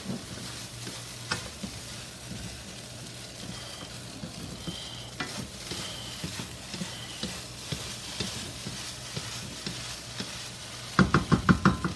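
Rice frying in a wok, sizzling steadily while it is scooped and stirred, with scattered small scrapes and clicks. Near the end comes a quick run of about eight loud pulses in under a second.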